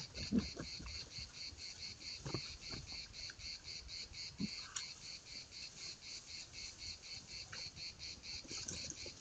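Insects chirring steadily in even pulses, about six a second. A few short low sounds come through it as a young wild boar moves across the ground, the loudest just after the start.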